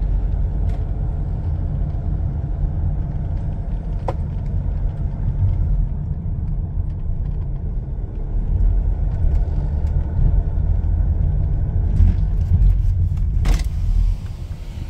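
Low road and engine rumble inside the cabin of a Hyundai Grand Starex camper van driving slowly. It grows louder past the middle and drops off sharply near the end.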